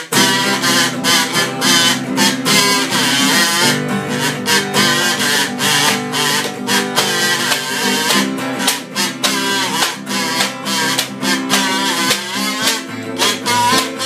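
Acoustic guitar strummed in rapid, even strokes, about four a second, with a wavering melody line over it.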